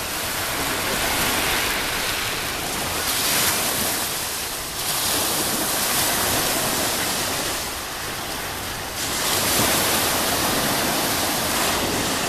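Sea waves washing onto the shore, the surf swelling and easing in several surges.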